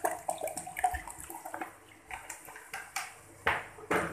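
Water poured from a plastic bottle into a glass blender jug, gurgling and splashing as it fills, then tapering off about halfway through. Two short knocks near the end.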